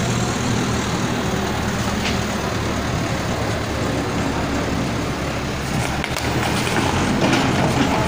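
Diesel backhoe loader engine running steadily close by, getting louder near the end as the front bucket pushes into a pile of debris, with a few knocks as the rubble is shoved.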